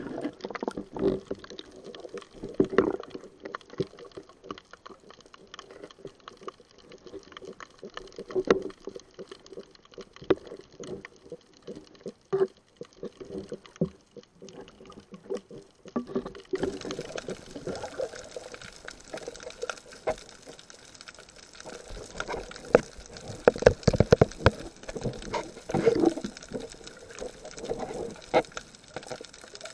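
Water sloshing and bubbling with many irregular clicks and knocks. About halfway through the sound turns brighter and busier.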